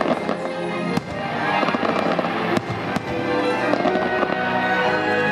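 Aerial fireworks bursting over loud show music: three sharp bangs, one about a second in and two close together near the three-second mark, with fainter crackling between.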